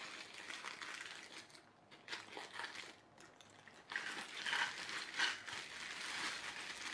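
Thin plastic bag crinkling as hands handle it, with a quieter lull about halfway through and busier crinkling in the second half.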